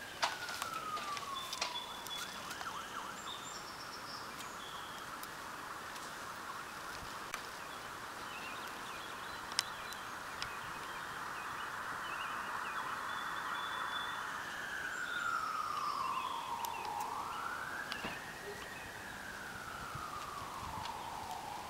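Emergency vehicle siren: a slow wail that falls near the start, switches to a fast warble for about twelve seconds, then returns to slow rising-and-falling wails. A few clicks near the start.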